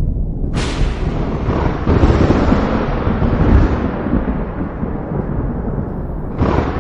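Thunder: a sharp crack about half a second in that breaks into a deep rolling rumble, swelling again around two seconds before slowly fading, then another crack near the end.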